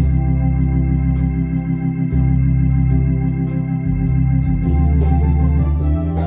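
Lowrey Grand Royale home organ playing a slow ballad: held chords on the upper manual over a bass note that moves every couple of seconds, with the organ rhythm's light cymbal ticking steadily, about four a second.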